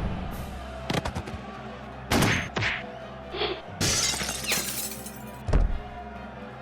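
Background music with a series of added punch-impact sound effects: sharp hits about a second in, around two seconds and near five and a half seconds, a short ringing ding in the middle, and a longer crashing, shattering burst about four seconds in.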